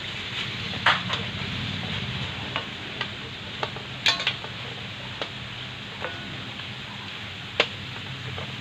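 Cubes of pork fat sizzling in hot oil in a wok during their second fry into chicharon, stirred with a wooden spatula. A few sharp knocks of the utensils against the wok, the loudest about one, four and seven and a half seconds in.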